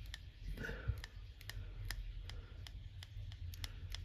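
Faint, irregular small clicks and ticks of hand work with a bobbin and thread at a fly-tying vise, over a steady low hum.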